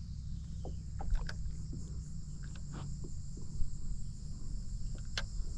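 Steady high-pitched drone of insects calling, over a low constant rumble, with scattered small clicks.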